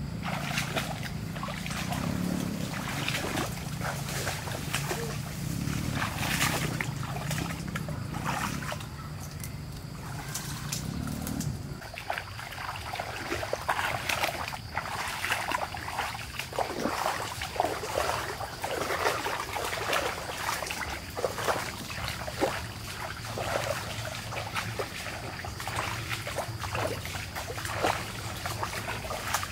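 Water splashing and trickling in irregular bursts, as hands and feet work through shallow water. A low steady hum runs underneath for the first dozen seconds, then stops suddenly.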